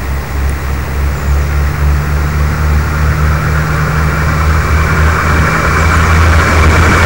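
Diesel railcar getting under way and approaching: a steady, low engine drone that grows louder, with a rising rush of wheel and rail noise toward the end.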